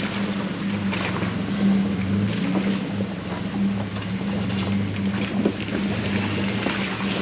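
Jeep engine running steadily at low revs while the vehicle crawls a trail, with occasional knocks and rattles from the rough ground.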